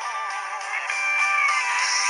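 Background music with guitar, a melody line gliding up and down; the sound is thin, with no bass.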